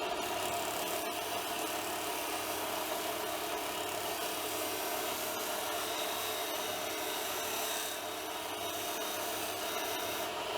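Bench grinder motor running steadily while a steel vise part is held against its spinning wheel, giving a continuous scratchy grinding over the motor's low hum as surface rust comes off.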